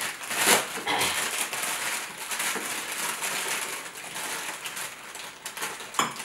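Crinkling and rustling of a white wrapper being handled and opened, a crackly rustle with a sharp click near the end.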